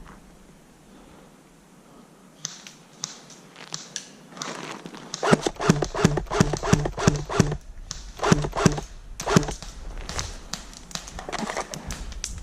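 Footsteps crunching through dry leaves and brush: a few scattered crunches, then a quick run of sharp steps about three a second from about five seconds in, easing off near the end.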